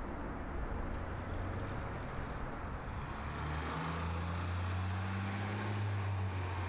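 Downtown street traffic: a city bus and a light-rail train moving along the street. A steady low engine drone comes in from about three seconds in.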